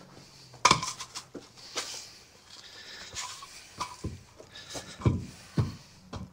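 Irregular knocks and clanks, about a dozen hits at uneven spacing, some ringing briefly, from wooden blocks and metal parts being handled while the front end of a backhoe is blocked up.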